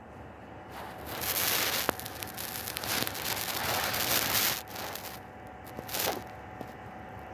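Close-up rasping and rustling of a cat licking and grooming its paw and fur, in one long stretch of a few seconds and then a short burst near the end.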